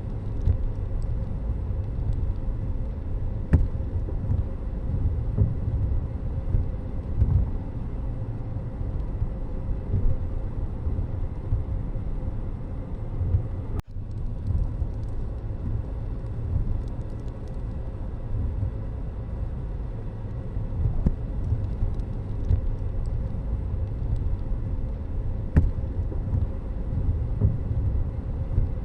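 Steady low rumble of vehicle road noise, with a brief break about halfway through.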